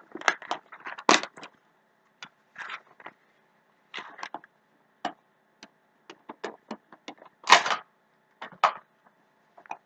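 Small toy packaging being opened and handled by hand: irregular clicks, crinkles and rustles with short pauses, the loudest rustle about seven and a half seconds in.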